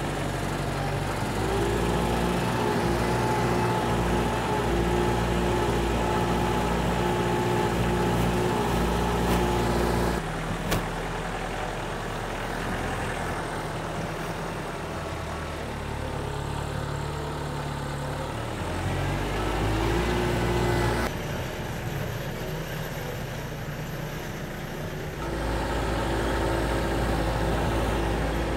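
McCormick tractor engine running steadily as it works a tilled field. Its pitch and loudness shift abruptly three times, about 10, 21 and 25 seconds in.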